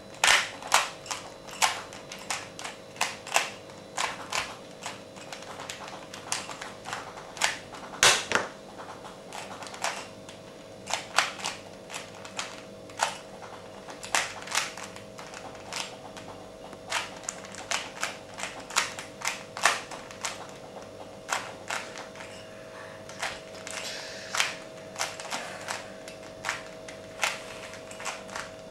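Rubik's cube being turned by hand: irregular plastic clicks and clacks as its layers are twisted, some in quick runs and some single.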